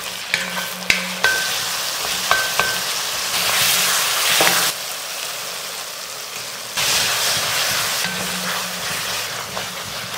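Onions, tomatoes and ginger-garlic paste sizzling in oil in a cast-iron kadai, stirred with a wooden spatula that gives a few light knocks and scrapes against the pan. The sizzle swells in stretches as the mix is turned.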